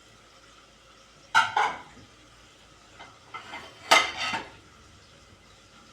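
Dishes and metal utensils clinking and clattering as they are handled in a dishwasher. There are two sharp bursts: one about a second and a half in and a louder one about four seconds in.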